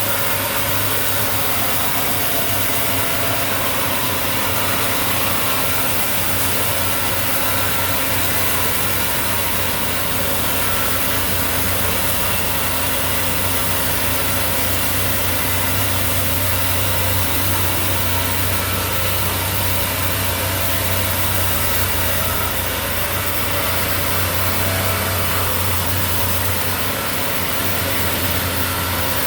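Sawmill engine running steadily at an even speed, a constant low hum.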